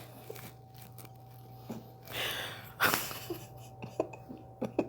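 A breath out, then a single sharp crack of the neck joints during a chiropractic neck adjustment a little under three seconds in, followed by a few smaller clicks.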